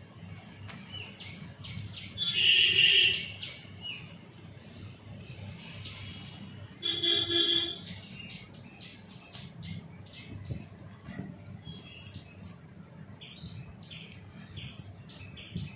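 A vehicle horn sounds twice, each toot about a second long and a few seconds apart, followed by birds chirping in short repeated calls.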